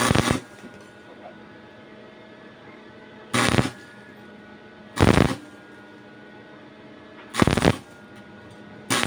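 Stick-welding arc crackling in short bursts, five times, each about a third of a second long, as the electrode is struck and laid in brief welds.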